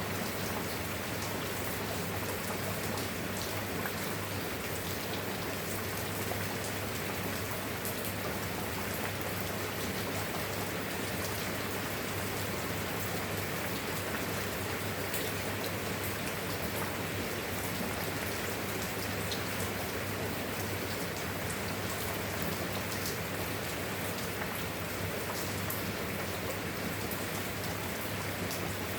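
Steady, even rainfall, with fine drop ticks pattering on a surface, over a constant low hum.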